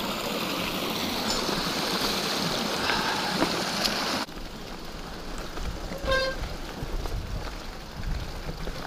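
Rushing, splashing water of a small rain-fed stream as a mountain bike rolls through the crossing. About four seconds in the water sound cuts off abruptly, leaving quieter rolling noise of the bike on the dirt trail, with a brief high-pitched squeak about six seconds in.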